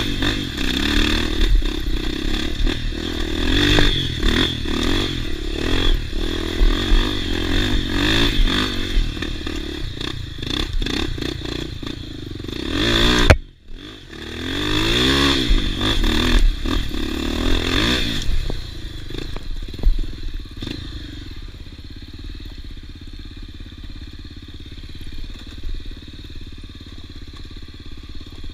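Off-road motorcycle engine revving up and down again and again, with some clatter, cutting off suddenly about 13 seconds in and picking up again. From about 20 seconds in it settles to a quieter, steadier running.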